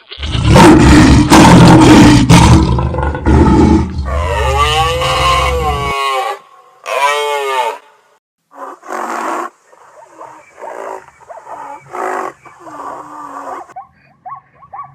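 Animal sound effects: a loud roar through the first four seconds, then pitched calls that rise and fall, then a run of shorter, quieter calls.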